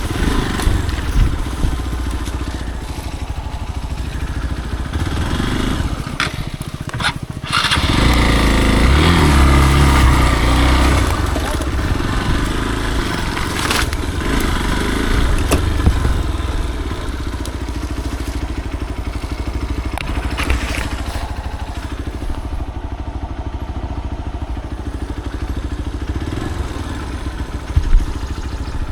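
Motorcycle engine running under way, dropping off briefly about seven seconds in and then revving up harder with rising pitch for a few seconds.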